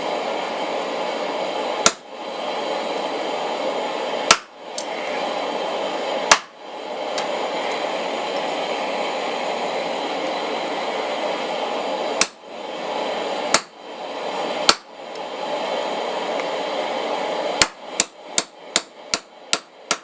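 Hammer blows on a blacksmith's punch over the anvil, driving a hole through hot steel stock to knock out the plug. First come single heavy strikes a few seconds apart, then a quick run of about seven blows near the end, all over a steady rushing noise.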